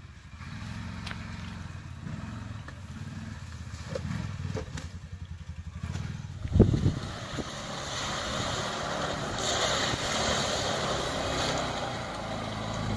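Off-road vehicle engine running in a mud hole, a steady low note at first. A single hard knock comes about six and a half seconds in. After that the engine works harder under a rising hiss of churned mud and water.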